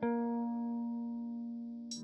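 Background music: a plucked guitar chord rings out and slowly fades.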